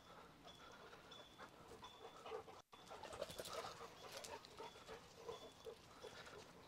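Large dogs, two Cane Corsos and a Rottweiler, panting faintly, with a short high chirp repeating in the background.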